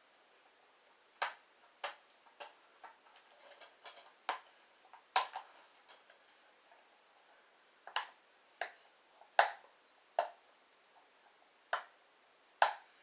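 Sharp plastic clicks and taps from handling a DVD case while working at its wrapping, about a dozen at irregular intervals with a pause in the middle.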